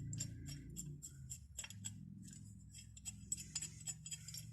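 Light, irregular clicks and taps from an old steel wrench being handled and turned over, over a low, steady hum.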